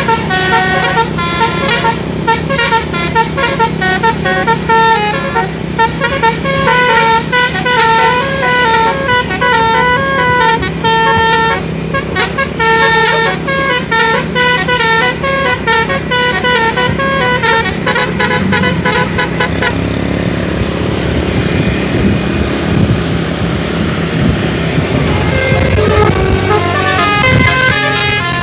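Bus telolet musical air horn playing a fast many-note tune over the running engine. The tune breaks off about twenty seconds in, leaving engine and road noise, and starts again near the end.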